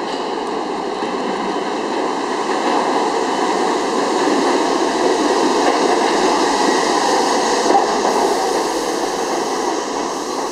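R68 subway train pulling into a station: a steady rumble of steel wheels on the rails that grows louder as the cars come alongside, then eases a little near the end as the train slows.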